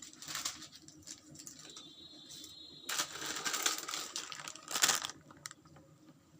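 Plastic packaging crinkling as it is handled, in several bursts, the longest in the second half and the loudest shortly after.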